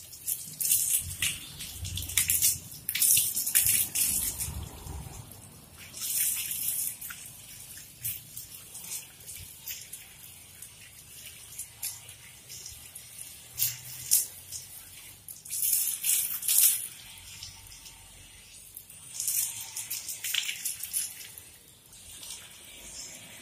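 Water from a garden hose pouring over a wet dog's coat and splashing onto a tiled floor. It comes and goes in irregular splashing surges as the hose and hand move over the dog.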